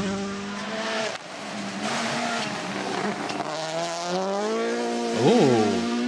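Rally car engine revving hard on a gravel stage, climbing in pitch as the car comes closer. About five seconds in it passes close while sliding through a corner, with a quick rise and fall in pitch, the loudest moment.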